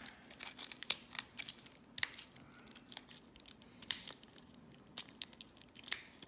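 Clear plastic blister pack crinkling and crackling as fingers flex and pry at it to free a microSD card, in irregular sharp clicks.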